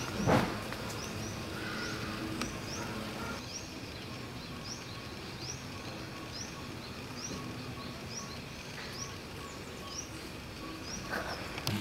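Outdoor ambience with a bird repeating a short, high, upward-sweeping chirp a little more than once a second. A single brief knock sounds about half a second in.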